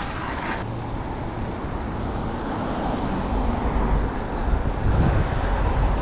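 City street traffic noise: a steady rumble that grows louder about three seconds in.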